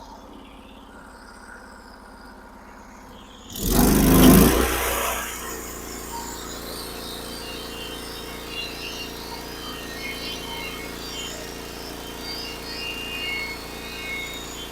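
Sawmill engine throttling up about four seconds in: a sudden loud surge that eases into steady running for the rest of the time.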